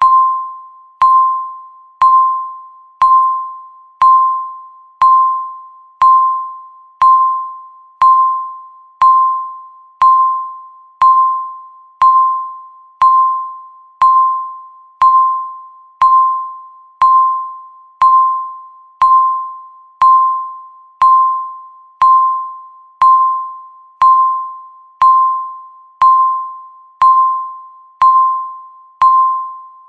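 Countdown timer beeping once a second: a single mid-pitched electronic tone that starts sharply and fades away before the next, repeating evenly about thirty times.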